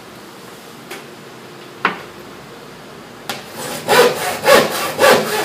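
Handsaw cutting through a plywood sheet by hand. Quiet at first, then about three seconds in it starts back-and-forth strokes at about two a second. The blade has just been sprayed with oil so it slides through the cut.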